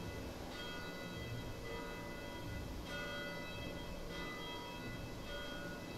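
Bells struck one at a time, about one strike every second, sounding a slow sequence of different notes. Each note is left to ring on into the next.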